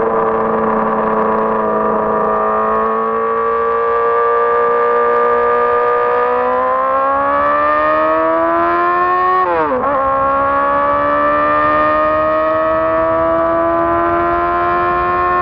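2006 Honda CBR600RR's inline-four engine running at steady high revs, then pulling up in pitch for a few seconds. A quick upshift about two thirds through drops the revs sharply, and the engine climbs again slowly.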